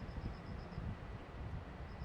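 Typhoon wind buffeting the microphone in uneven low rumbling gusts. A high, rapid chirping series of short even pulses sounds over it, once at the start and again near the end.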